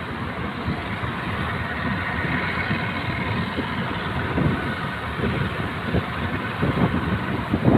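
A boat's engine running at sea, with wind buffeting the microphone in irregular low thumps that get stronger near the end.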